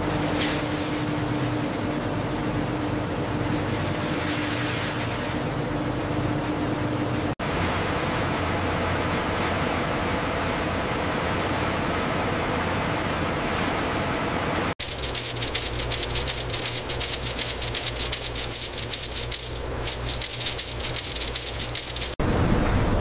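Steady machinery noise in three separate shots: first an even rushing noise with a steady hum, then rushing noise alone, then a fast, even rattling over a low drone.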